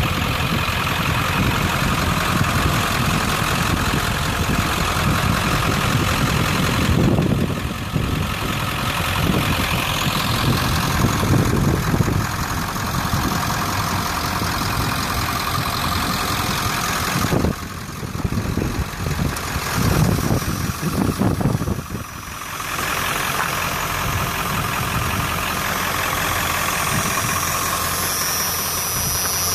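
1995 Ford F-250's 7.3-litre Powerstroke turbo-diesel V8 idling steadily, with its level dipping briefly a couple of times.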